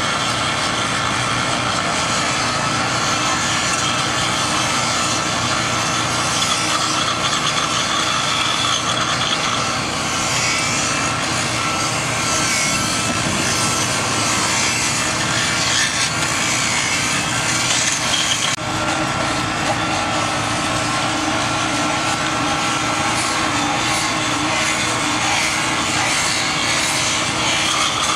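Rail grinder working the head of a steel rail, most likely dressing a flash-butt weld: a steady, loud grinding whine and hiss from the abrasive wheel on steel. The sound breaks off sharply about two-thirds of the way through and then carries on in the same way.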